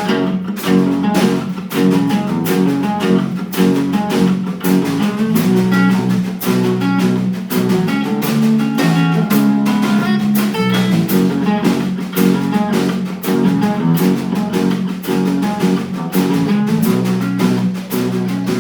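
A live rock band playing the instrumental intro of a song, with guitar over a steady, driving beat.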